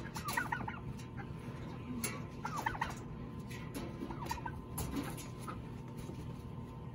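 A Bourbon Red turkey tom gobbling three times, each gobble a quick rattling burst.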